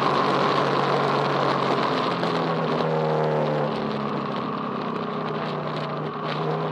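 Racing vehicle engines running at a race circuit. About three seconds in, one engine's note falls in pitch.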